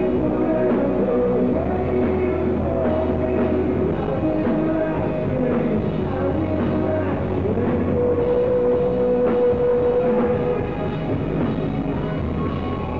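Live rock band playing: a male lead vocal sung over electric guitar, bass and drums, with one long held note from about eight to ten and a half seconds in.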